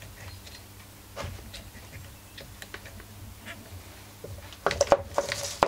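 Light clicks and taps of plastic and metal parts being handled as a recoil starter pulley is fitted into its housing. A louder clatter with a brief squeak comes about five seconds in.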